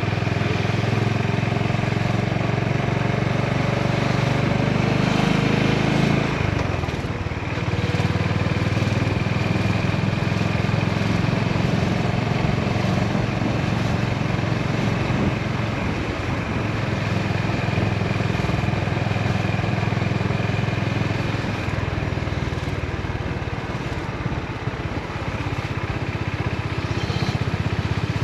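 Honda GB350's air-cooled single-cylinder engine running steadily while riding, with wind rush. The engine note drops off briefly about six or seven seconds in, then picks up again.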